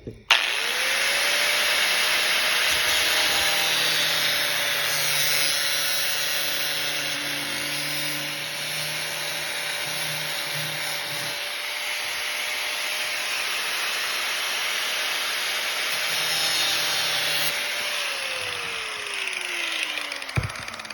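An electric power tool's motor running at steady speed with a constant whine. About 18 seconds in it is switched off and winds down, its pitch falling over a couple of seconds.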